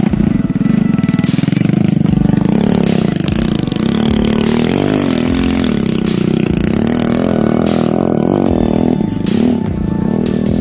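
Small motorcycle engine running close by, its pitch swelling up and down as it is revved, with some clatter.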